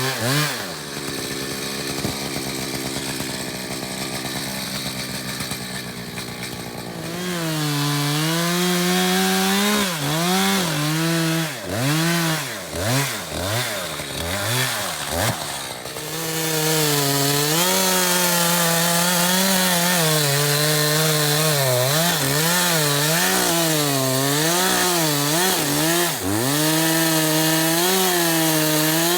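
Gas chainsaw running. It is lower and quieter for the first few seconds, then revs up and down repeatedly, and from about halfway on it is held at high throttle in a long cut, its pitch wavering under load as it cuts up the felled tree.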